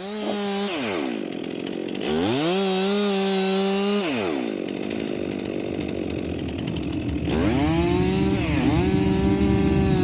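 Chainsaw blipped twice to full throttle with idle between. From about seven seconds in it is held under load cutting into a fallen, snow-covered log, its pitch lower and wavering as the chain bites.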